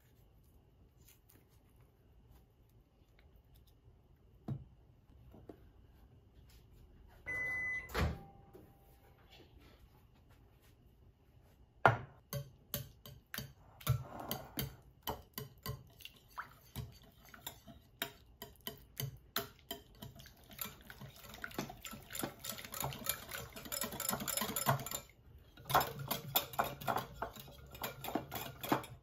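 A short electronic beep about seven seconds in. From about twelve seconds on, a wire whisk clinks and scrapes against a glass mixing bowl in quick strokes that grow faster and denser toward the end.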